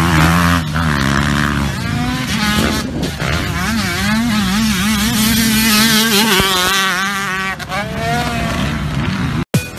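Motocross dirt bike engines running hard on a dirt track, their pitch rising and falling as the riders work the throttle through turns and jumps. The sound cuts out abruptly near the end.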